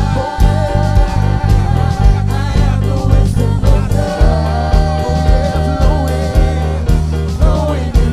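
Spontaneous gospel worship song: a voice singing a held, wavering melody over a band with heavy bass and a steady beat of about two beats a second.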